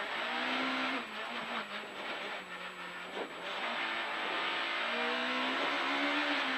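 Rally car engine heard from inside the cabin, driven hard: the revs drop about a second in and again around three seconds, then pull back up as the car accelerates out of the corner onto a straight.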